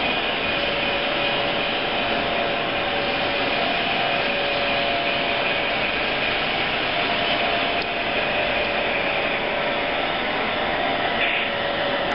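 Model railroad freight cars rolling along the track: a steady whirring rumble of small metal wheels on rail, with a faint steady hum running through it.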